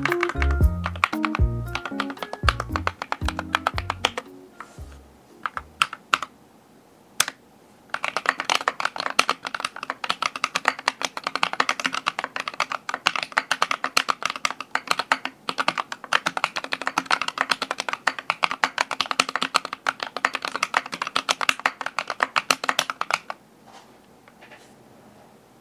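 Fast typing on a Keychron V8 Alice-layout mechanical keyboard fitted with Akko CS Piano switches and white keycaps: a few scattered keystrokes, then a rapid, even clatter of key presses from about eight seconds in that stops near the end.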